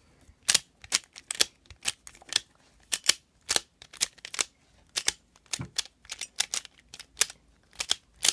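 Plastic Pyraminx puzzle being twisted by hand: an irregular run of sharp clicks, about two or three a second, as its layers and tips snap round.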